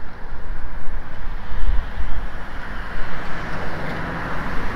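A car passing on the street, its tyre and road noise growing louder through the second half.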